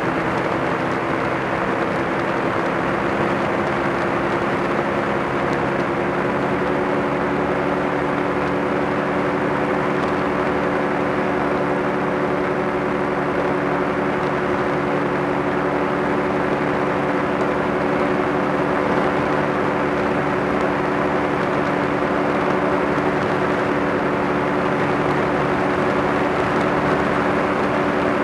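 Kolb ultralight aircraft's pusher engine and propeller running at a steady drone in level flight.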